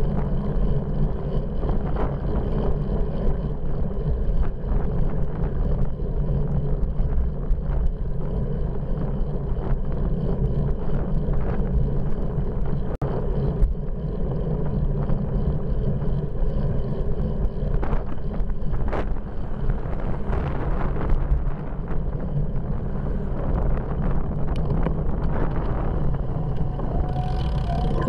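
Wind rushing over the microphone of a front-mounted Cycliq Fly12 camera-light and road rumble from a moving bicycle, steady and deep, with scattered short knocks and rattles.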